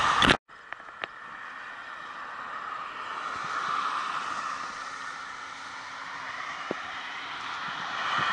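Distant road traffic: an even hiss that swells and eases, with a faint steady hum under it and a few small clicks. A loud rush of wind or handling noise on the microphone cuts off abruptly about half a second in.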